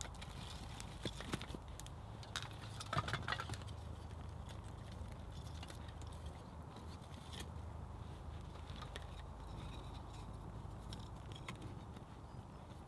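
Split wooden kindling sticks knocking and scraping as they are laid onto a small log-cabin campfire, with light crackling from the burning kindling. The loudest clatter of wood comes about three seconds in, over a low steady rumble.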